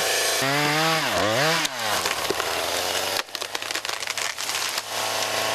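Chainsaw running, its engine pitch dipping and climbing again in the first two seconds, then a rough, noisy cutting sound as it works through the logs.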